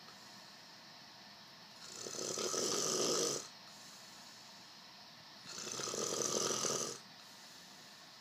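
Snoring during sleep: two long snores, the first about two seconds in and the second about five and a half seconds in. Each swells over about a second and a half and breaks off sharply, with quiet breathing gaps between.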